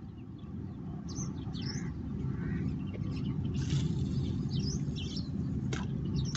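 Small birds chirping in short, scattered calls over a steady low rumble, with one sharp click near the end.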